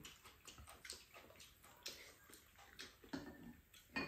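Close, quiet eating sounds: people chewing and slurping paprika japchae glass noodles, with small clicks of chopsticks and spoons against bowls, and one louder click near the end.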